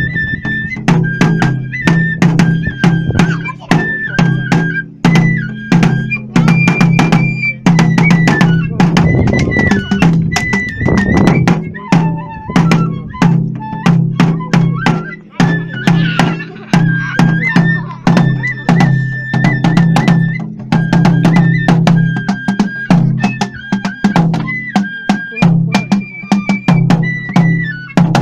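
Live kagura festival music: a bamboo flute plays a high, stepping melody over fast, steady drum and small-cymbal beats accompanying the dance.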